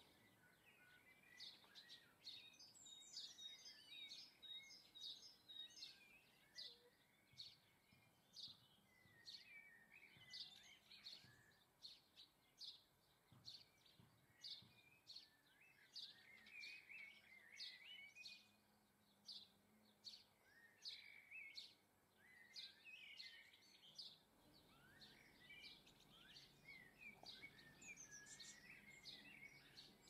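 Faint chirping and twittering of small garden birds: many short high chirps mixed with quick warbling phrases throughout.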